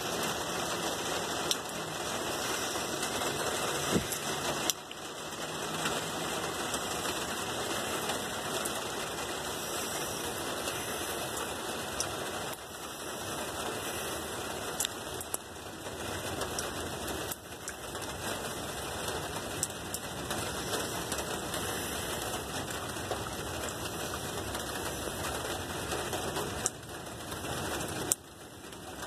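Heavy rain pattering steadily, a dense even patter with a few sharper taps scattered through it.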